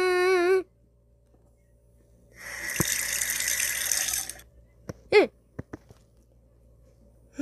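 Water running from a sink tap for about two seconds, starting about two seconds in. At the start a high-pitched held voice sound cuts off, and a short rising-falling squeak follows about five seconds in.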